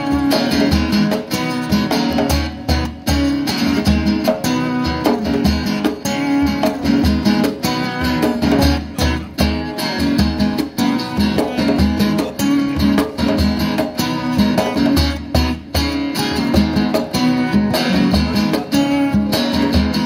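Instrumental passage of two acoustic guitars strumming chords over a djembe beating a steady rhythm.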